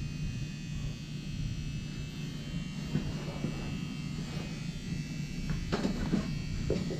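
Steady electrical buzz and hum, a constant low drone with a thin high whine over it.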